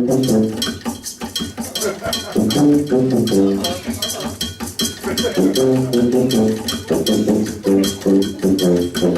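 Upbeat instrumental music: short, quick melodic phrases over a fast, even clicking beat.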